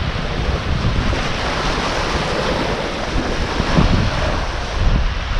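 Small waves breaking and washing up onto a sandy beach, with wind buffeting the microphone as a steady low rumble.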